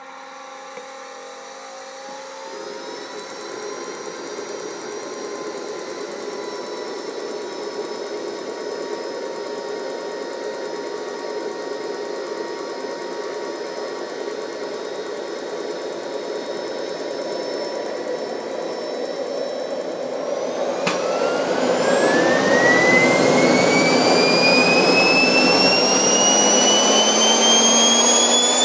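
GR180 model turbojet engine going through a start on diesel fuel. Its whine rises over the first few seconds and then holds steady under a growing rush. About 21 s in there is a click, and the whine then climbs steadily in pitch and grows louder as the turbine spools up.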